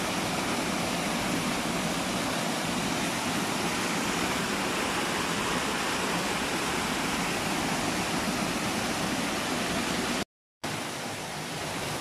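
Waterfall and rocky stream cascades rushing in a steady, even wash. The sound drops out completely for a moment about ten seconds in.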